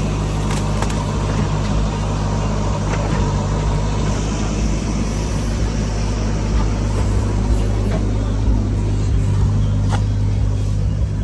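Heavy diesel engine of a backhoe loader or tractor running steadily at a constant speed, with a few faint knocks.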